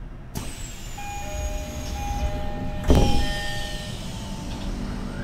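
Stationary JR commuter train at a platform with its doors closing: held beeping tones from the door chime and equipment, high whines falling slowly in pitch, and a loud thud about three seconds in as the doors shut.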